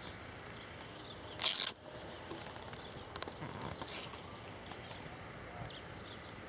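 Outdoor ambience with small birds chirping faintly and repeatedly. A brief burst of hissing noise about one and a half seconds in is the loudest moment.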